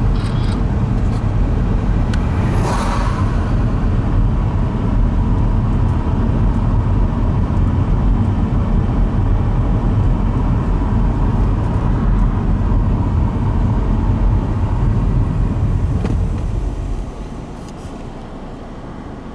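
Steady low road and engine rumble of a moving car, heard from inside, becoming noticeably quieter near the end.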